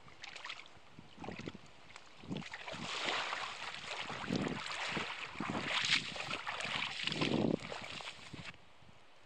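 Shallow lake water splashing and sloshing around a wader's legs with each step through the shallows, in a run of irregular strides that grows busier toward the bank. The sloshing cuts off abruptly near the end, leaving only a low background.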